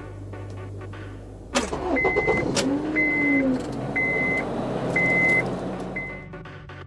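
A car's warning chime beeps five times, about once a second, at a high pitch, over a sudden rise of car engine and street noise about a second and a half in; the noise falls away near the end.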